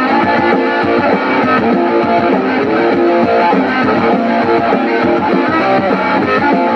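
Guitar strummed continuously, playing the chords of an original punk song demo.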